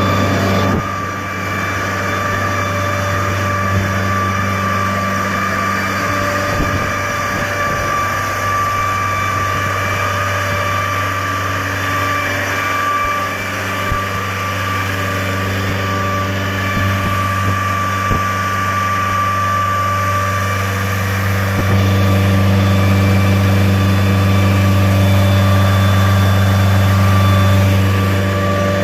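Diesel engine of a mobile screening plant running steadily, with a steady high tone over the engine note and a few light knocks. Late on it runs louder.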